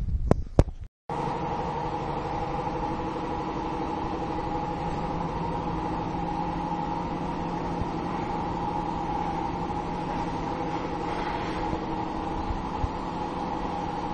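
A steady machine drone with several constant hum tones over a noisy rumble, holding an even level, following a brief dropout to silence about a second in.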